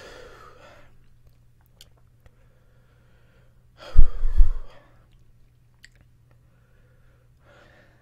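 A man breathing hard through his mouth against a hot-pepper burn, with faint breaths and one forceful blow out through pursed lips about halfway through that hits the microphone with a low rumble.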